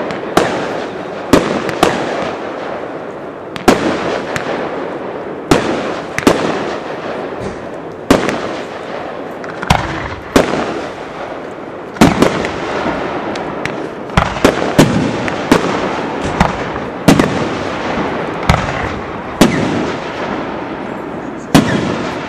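Aerial firework shells bursting one after another: about twenty sharp bangs at irregular intervals, coming more quickly in the second half. Each bang trails off into a long rolling echo.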